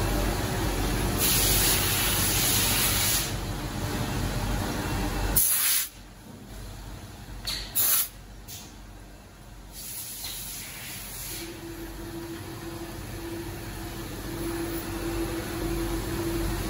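Multi-spindle CNC drilling machine running with flood coolant spraying onto a watch case, the hiss loudest in the first few seconds; the noise stops suddenly about five seconds in. Two short blasts of a compressed-air blow gun follow close together, clearing chips from the part. From about two-thirds of the way through, a steady spindle hum starts and the machine and coolant noise build up again.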